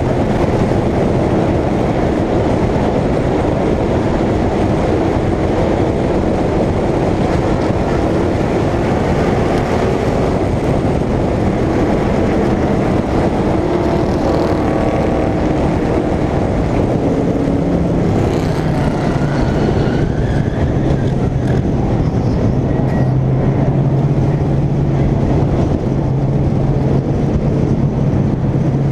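Short-track stock car's engine running hard at racing speed, heard from on board the car. It is loud and steady, and the engine note changes pitch about two-thirds of the way through.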